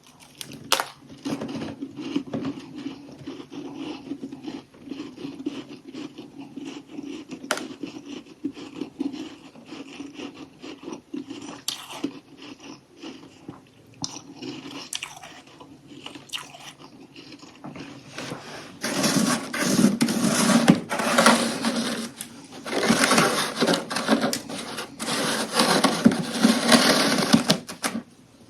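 Close-up chewing of crunchy humidifier freezer frost: scattered crisp crackles and crunches, then in the last third three loud, dense spells of crunching as mouthfuls are bitten down.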